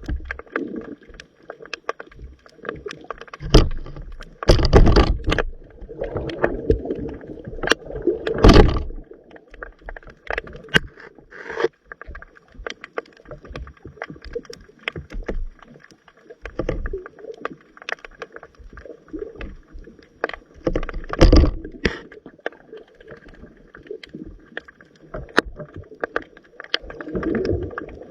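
Water heard underwater through a camera: gurgling and sloshing, with scattered clicks and knocks and a few louder rushing surges.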